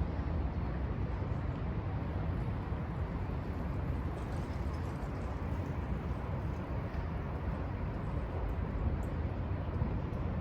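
Steady low rumble of city traffic in the open air.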